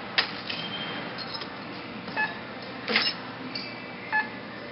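Checkout barcode scanner beeping twice, about two seconds apart, each beep a short pitched tone as an item is rung up. Sharp knocks and clatter of items being handled come near the start and about three seconds in.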